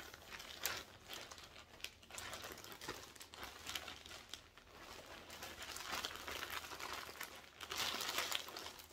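Clear plastic bag crinkling and rustling as it is handled, a stream of small crackles that grows busier near the end.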